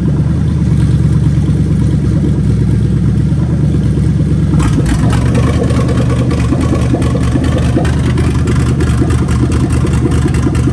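Lexus 1UZ-FE VVT-i 4.0-litre V8 idling steadily. About four and a half seconds in, a fast, bright ticking clatter joins the engine note and runs on nearly to the end.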